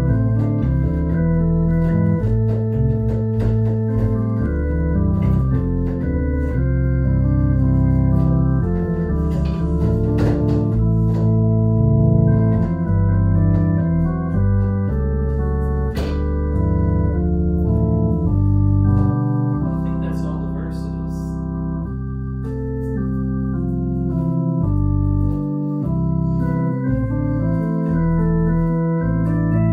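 A hymn played on a theatre-style organ: sustained full chords that change every second or so over a deep pedal bass. It goes softer for a few seconds a little past the middle.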